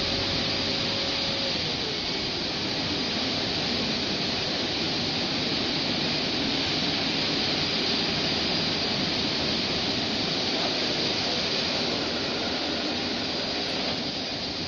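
Automatic tunnel car wash running: a steady rushing hiss of water spray and spinning brushes on a car, with a machine hum underneath that falls in pitch about two seconds in.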